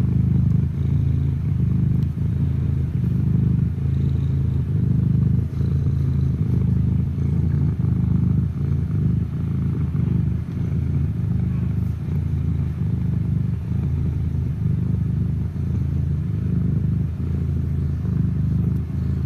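A cat purring, a deep continuous rumble with a regular pulsing.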